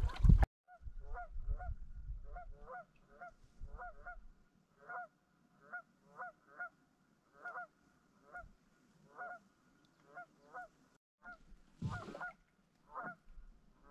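Two Canada geese honking: a long series of short, nasal honks, about two a second and often in quick pairs, from a nesting pair.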